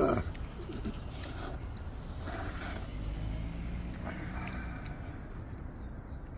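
People slurping ramen noodles: short, noisy slurps about a second in, around two and a half seconds and again near four seconds. A steady low rumble runs underneath.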